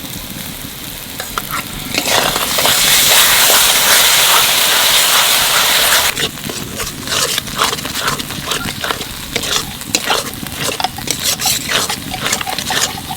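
Spice masala frying in a kadai. About two seconds in, a loud sizzle surges as sour curd is added to the hot oil. After about four seconds it drops to quieter sizzling under the rapid scrape and clatter of a spatula stirring the pan.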